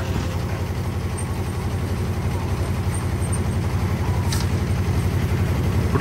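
The engine of heavy construction machinery at a concrete slab pour, running steadily as a low, even drone. A single short, sharp sound cuts through about four seconds in.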